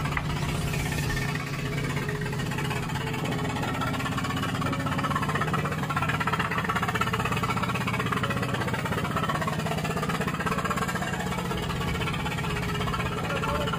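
Steady low hum of the fishing boat's engine running.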